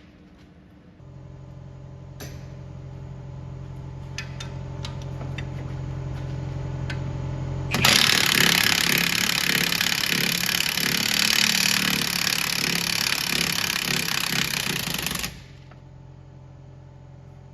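A power tool runs loudly and continuously for about seven seconds, then cuts off suddenly, over a steady machine hum that slowly grows louder before it.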